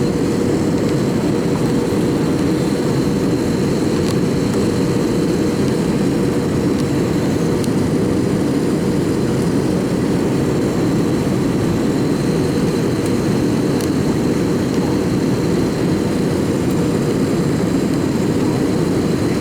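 Steady cabin noise of an Airbus A319-112 heard from inside the passenger cabin: a loud, even rush of engine and airflow noise from its CFM56 turbofans, with a constant hum running through it.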